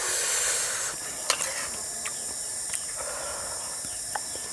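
Steady high-pitched drone of insects, with a few light clicks of a spoon against an enamel plate and a brief rustling noise in the first second.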